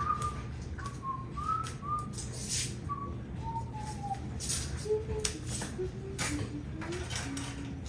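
Background music: a simple melody of short, whistle-like notes stepping down in pitch, with faint clicks between them.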